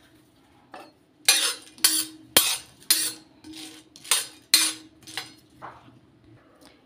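Metal spatula scraping across an iron tawa, stirring green cardamom pods as they dry-roast: about eight short scrapes in quick succession, with one sharp clink among them.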